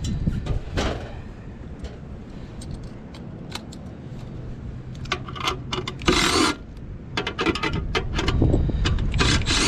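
Metal hand tools clinking and scraping against the metal parts of a rooftop unit's inducer motor assembly as it is taken apart: scattered sharp clicks, a dense run of clinks and scraping about halfway through, and louder rasping near the end.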